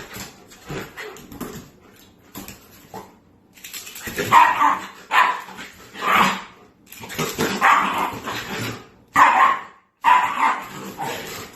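Dog barking repeatedly: a series of separate barks about a second apart, quieter at first and louder from about four seconds in.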